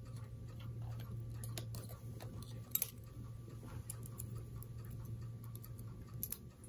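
Faint, irregular small clicks and taps of hackle pliers and fingers being handled at a fly-tying vise, over a steady low hum. The sharpest clicks come about three seconds in and near the end.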